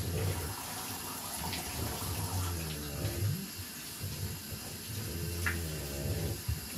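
Water running from a bathtub tap and splashing as a wet French bulldog is rinsed under it, steady throughout.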